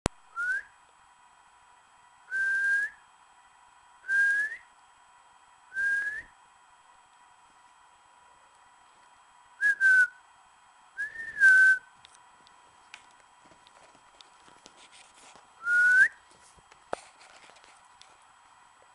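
A person whistling a series of short single notes to a puppy, a second or more apart, most sliding up in pitch at the end. A couple of quick short whistles and a longer one that dips down come just before the middle.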